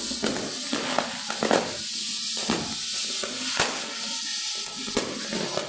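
Ground fountain firework spraying sparks with a steady loud hiss, broken by a few sharp pops and cracks.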